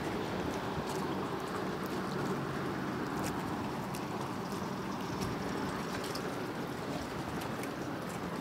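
Steady rushing background noise with faint, scattered ticks and no clear single source.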